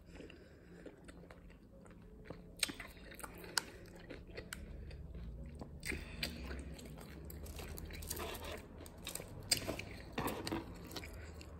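Close-mic chewing and crunching of a chamoy pickle stuffed with Takis chips and Fruit Gushers gummies: scattered wet smacks and crunches, with a few sharper crunches about a third of the way in and again near the end.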